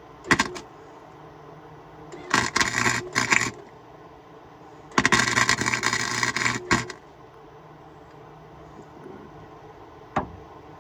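Arc welder sputtering in short welds as a stripped nut is welded to a socket: a brief burst at the start, another of about a second, then a longer one of nearly two seconds, and a sharp click near the end.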